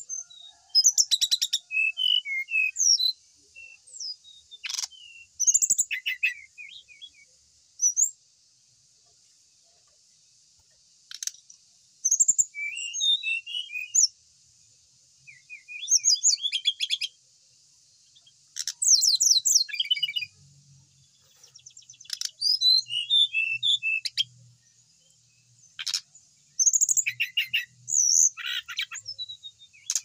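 A caged songbird singing in short phrases of varied chirps, whistles and fast trills, with pauses of a second to a few seconds between phrases, over a faint steady high hiss.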